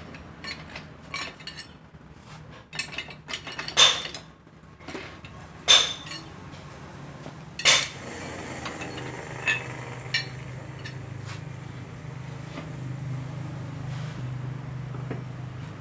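Metal clinks and knocks of a wrench or bar working the side adjuster of a Mitsubishi Canter 125 differential, turned to set the ring-and-pinion. There are three sharp loud strikes about 4, 6 and 8 seconds in, then lighter taps. A steady low hum comes in about halfway through.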